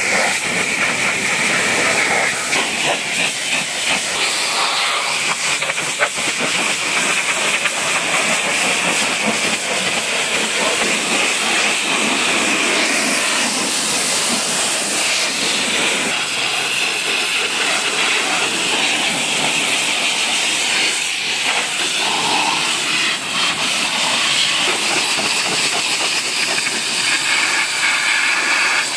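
Pressure washer lance spraying a high-pressure jet of water onto a car's wheels, tyres and front bumper: a loud, steady hiss of spray that changes as the jet moves from one surface to another.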